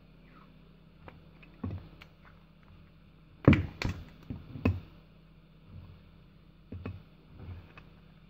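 A metal jumper-cable clamp handled and knocked against a wooden tabletop while being wrapped in electrical tape: scattered knocks, the loudest a quick run of three about three and a half seconds in.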